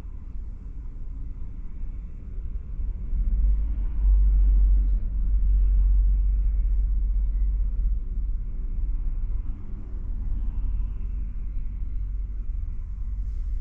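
Low, steady rumble that swells about four seconds in and eases off a few seconds later.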